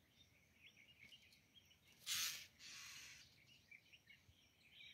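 Quiet outdoor ambience with faint, scattered bird chirps. About two seconds in comes a short, loud hiss-like noise, then a softer one lasting about a second.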